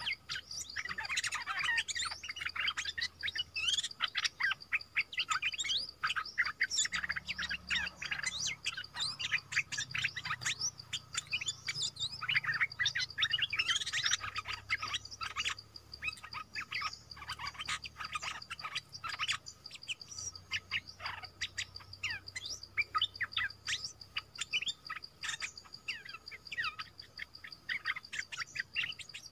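Small songbirds chirping rapidly and almost without pause, busiest in the first half: a caged decoy bird in a trap cage calling and wild birds of the same kind answering. A steady high-pitched tone runs underneath.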